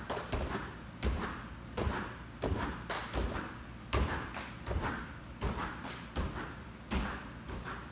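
Bare feet landing on foam floor mats as a person jumps repeatedly: a dull thud about every three-quarters of a second, some ten in all.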